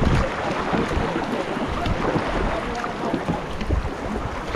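Canoe paddles working through river water, steady splashing and rushing water around a racing canoe, with wind rumbling on the microphone.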